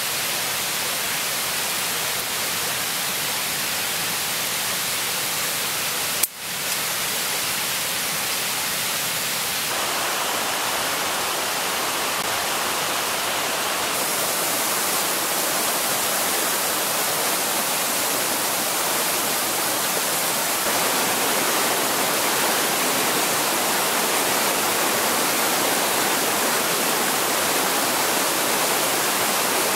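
Steady rushing of a shallow rocky rainforest stream with small cascades. It breaks off briefly about six seconds in, sounds fuller from about ten seconds on, and grows slightly louder towards the end.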